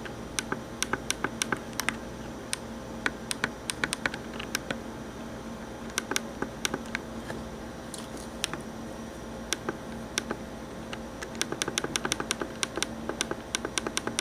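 Small plastic buttons on a compact digital camera being pressed over and over, clicking in uneven runs of several presses a second, as the camera's mode menu is stepped through. A faint steady hum lies underneath.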